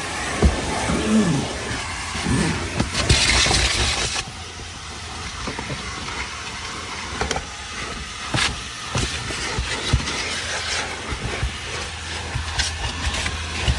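Coin-operated car wash vacuum hose running with a steady hiss, the nozzle knocking and clicking against the car's interior while cleaning it out. About three seconds in, the suction rushes louder for about a second.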